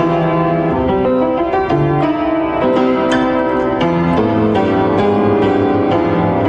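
Steinway piano being played: chords and a melody line, many notes struck and held together, changing every fraction of a second.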